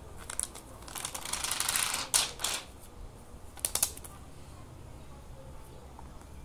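A self-adhesive pearl sticker strip being peeled off its clear plastic backing sheet: a crackling, ticking rip that grows louder for about a second, then a few sharp clicks.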